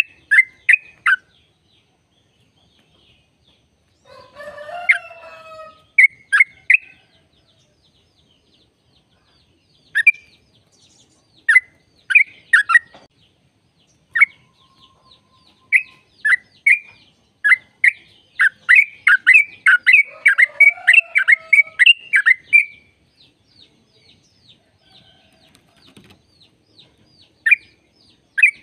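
Sooty-headed bulbul (trucukan) singing: short, sharp, clear notes in scattered phrases, building into a fast run of notes in the second half. Twice, a lower warbling call sounds under the song.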